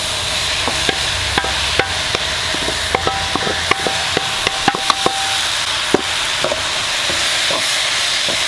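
Oil sizzling under a stir-fry of minced chicken as shredded chayote is tipped into the pan from a metal bowl. A run of sharp clinks and taps, some briefly ringing, comes from about one to six seconds in as the bowl knocks the pan, then a wooden spatula stirs the food.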